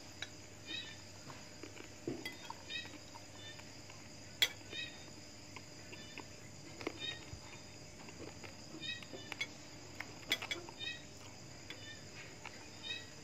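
Eating sounds: chewing and a few sharp clicks of a spoon against a plate. The loudest click comes about four and a half seconds in. Behind them are repeated short, high chirps from small night animals over a steady faint hum.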